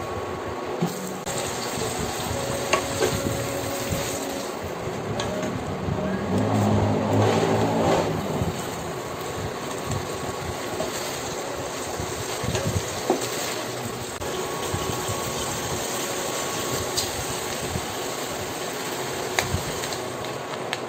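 Mixed vegetables sizzling in a stainless-steel pot as a wooden spatula stirs them, with a few sharp knocks of the spatula on the pot. About six seconds in, a louder low hum swells for about two seconds.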